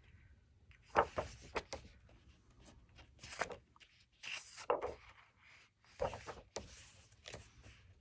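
Thick paper pages of a coloring book being turned and pressed flat by hand: a series of brief paper rustles and swishes, several of them spread through a few seconds.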